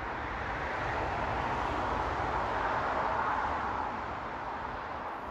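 Road traffic on a dual carriageway, a steady rush of tyre and engine noise that swells as a vehicle passes about halfway through, then eases off.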